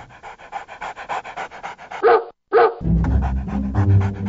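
A dog panting fast, about seven breaths a second, broken by two loud barks about half a second apart. Just after the barks, music with a low bass line starts under the continuing panting.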